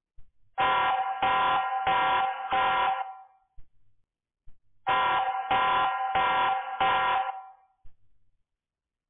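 An electronic alarm-like tone beeping in groups of four, each beep about half a second long at one steady pitch. The groups are separated by a pause of a little under two seconds; two full groups are heard.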